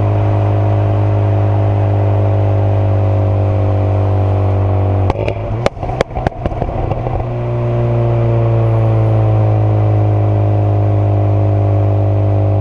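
Renault Mégane 225 Trophy's 2.0 turbo four-cylinder, decatted with the middle silencer removed, droning at steady revs. About five seconds in it comes off the throttle and the exhaust lets out a quick run of sharp pops and crackles for about two seconds, then the steady drone returns.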